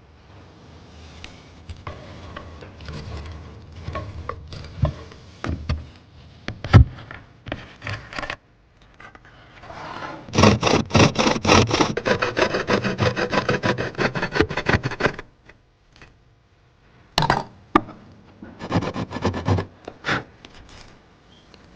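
Hand tool rasping and scraping on wood in short spells of quick, even back-and-forth strokes. There is a sharp knock about seven seconds in.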